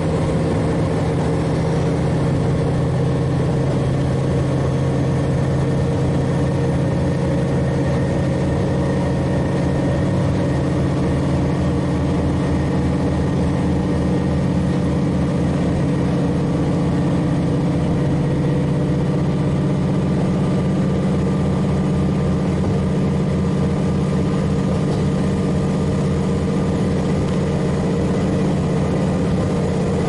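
KiHa 40 diesel railcar's N-DMF13HZI six-cylinder diesel engine running steadily under load, heard from inside the car over the train's running rumble. The engine note shifts slightly a few seconds in and again around the middle.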